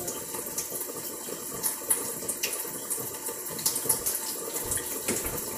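Kitchen faucet running steadily into the sink, with a few light clicks and clatters over the flow.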